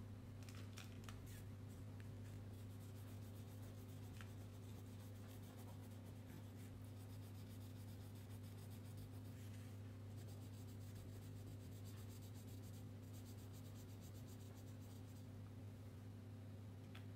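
Crayon scribbling on paper in quick back-and-forth coloring strokes, faint and scratchy, with a few light clicks of crayons knocking together in their box near the start and near the end, over a steady low hum.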